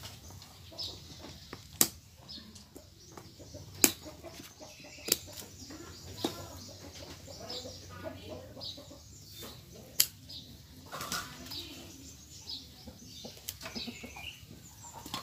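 Pruning scissors snipping through the stems of a bonsai stock: about five sharp snips spread irregularly over several seconds. Birds chirp and chickens cluck in the background.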